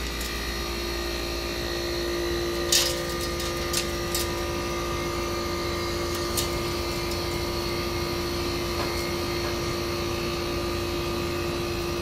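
Chrysler Airtemp Imperial air conditioner running just after start-up, a steady hum with a few steady tones. A few short sharp clicks come between about three and six seconds in.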